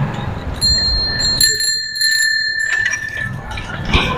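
Bicycle bell ringing, struck several times in quick succession from about half a second in until near three seconds, over wind and road noise that drops away while it rings.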